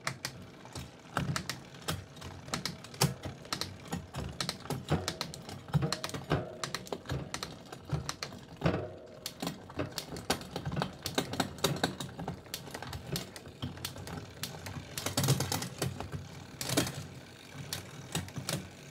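Mountain bike drivetrain turned by hand: the chain runs over the spinning rear cassette with a dense, irregular run of clicks and ticks as the rear derailleur shifts through the gears. The shifting is clean on the freshly built bike and needs no adjustment.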